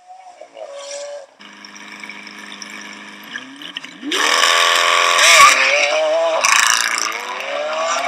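Supercar engine idling, then revving up and accelerating hard about four seconds in. The pitch dips briefly a couple of times as it shifts, then climbs again near the end.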